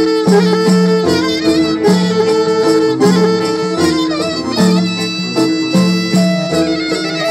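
Traditional Greek folk music: an ornamented instrumental melody with a fiddle-like bowed lead over repeating bass notes and a steady beat.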